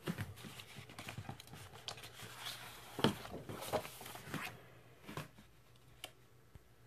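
Vinyl LP and its paper sleeve being handled: a run of rustling, sliding and light clicks for about four and a half seconds, then a couple of soft taps.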